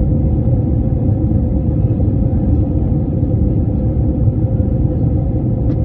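Steady low rumble of jet airliner cabin noise, with a faint steady hum above it.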